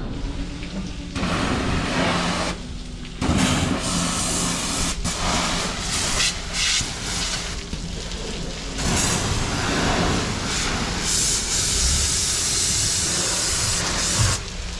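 High-pressure washer spraying water against a fishing boat's hull, a loud hiss that cuts out and starts again several times over a steady low hum.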